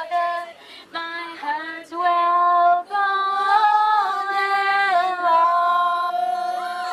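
A woman singing a song solo and unaccompanied, with long held notes that glide between pitches.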